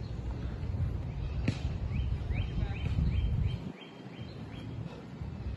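Low, buffeting wind noise on the microphone, easing a little after about three and a half seconds. Over it, a bird gives a quick series of about eight short chirps, each falling in pitch, about three a second, in the middle of the stretch.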